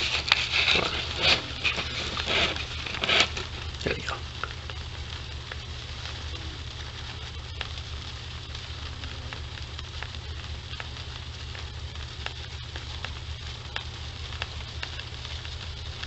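Honeybees of a newly hived swarm building comb inside the hive box: a steady fine crackling, like Rice Krispies popping in milk, from the bees chewing the wood and the wax. It is the sign that the colony is building comb, has a queen and has plenty of food. A few louder clicks come in the first few seconds.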